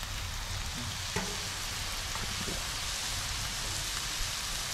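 Crappie fillets sizzling in oil on a Blackstone flat-top griddle, a steady hiss, with one short tap of the metal spatula about a second in as a fillet is turned.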